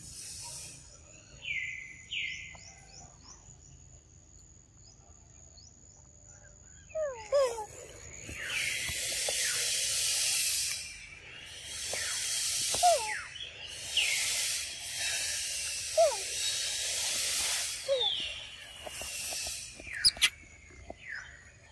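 Tropical forest ambience: a thin steady high whine at first, then from about seven seconds a loud chorus of insects shrilling in repeated hissing pulses a second or two long. Short descending bird calls run through it, and there are two sharp clicks near the end.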